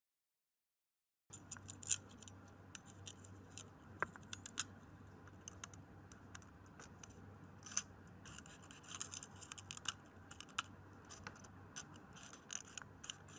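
Thin steel feeler gauge blade sliding and scraping between a camshaft lobe and a valve bucket on a Honda CBR250R's cylinder head while checking valve clearance: faint, irregular small metallic clicks and scrapes over a low steady hum, starting about a second in after silence.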